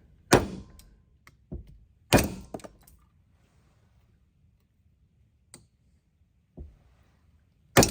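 Hammer blows struck through a wooden block used as a drift punch to straighten a bent aluminum e-bike plate: two sharp knocks in the first two seconds, a few faint taps in the middle and another hard knock at the very end. The wooden drift is splitting.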